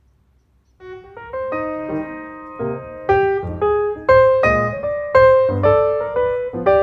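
Background piano music begins a little under a second in, after near silence: a run of struck notes, several sounding together, each fading away after it is played.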